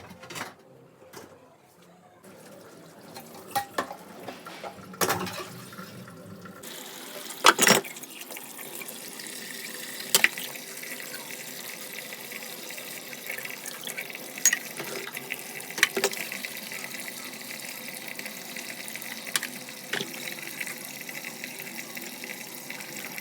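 Water running steadily from a tap into a sink, starting a few seconds in, with scattered sharp knocks and clicks over it.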